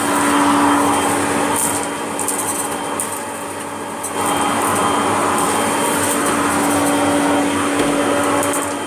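Kirby G6 vacuum cleaner running with a steady motor hum, its suction noise swelling and dropping as it works over the mess, dipping for a couple of seconds and coming back up about four seconds in. Scattered crackles of debris being sucked up.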